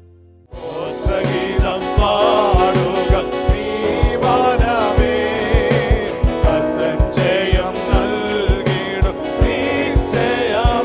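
A Christian worship song starts about half a second in: a singer with wavering, vibrato notes over instruments and a steady drum beat.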